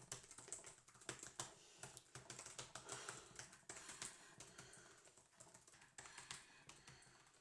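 Fingers typing on a laptop keyboard: a quick, irregular run of faint key clicks.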